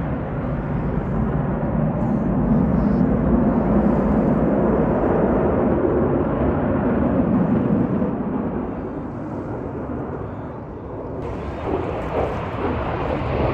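Jet aircraft passing overhead: a deep rumble that swells, then fades away. Wind buffets the microphone near the end.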